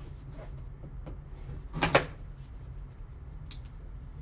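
Hands handling a cardboard trading-card box, with one short knock about two seconds in, as of the box being set down on the table, over a steady low hum.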